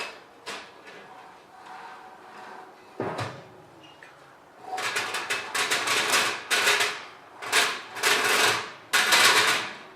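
Hands working on the Rikon bandsaw's metal parts: a few sharp knocks in the first three seconds, then about five seconds of scraping and rattling in short repeated bursts.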